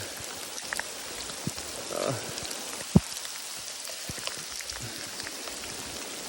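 Steady heavy rain falling, a constant hiss with scattered individual drops ticking close by and one sharper tap about three seconds in.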